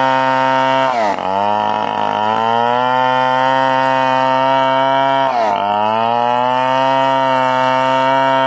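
Stihl 070 two-stroke chainsaw running at high revs while cutting timber. Its pitch sags sharply twice, about one second and five seconds in, then climbs back over a second or so, the engine loading down in the cut and recovering.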